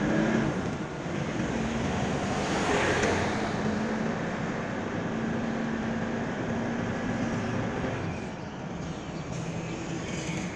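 Steady engine hum and road noise heard from inside a moving car. About three seconds in the noise swells briefly as the car passes a semi-trailer lorry.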